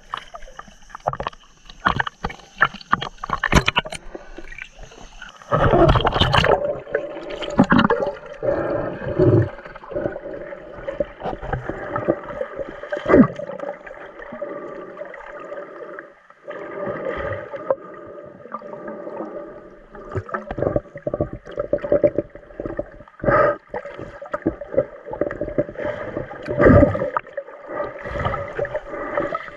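Water splashing and knocking at the surface, then from about five seconds in the muffled sound of being underwater: bubbling and water movement against the camera, with a steady hum, as a snorkeler dives.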